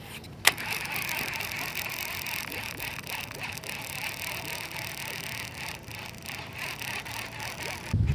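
Fishing reel being cranked to wind in line, a steady fine whirring of the reel's gears, after a single sharp click about half a second in.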